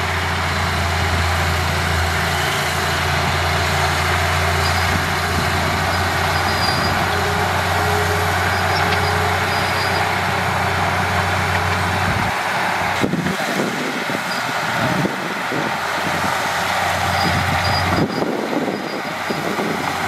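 Heavy diesel earthmoving machinery running, a steady low engine hum under a loud mechanical noise; about twelve seconds in the low hum drops away and the sound turns uneven.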